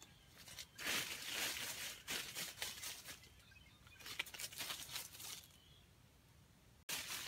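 Red junglefowl rooster scuffling through dry leaf litter, in bursts of rustling about a second in, again around four seconds in, and briefly near the end.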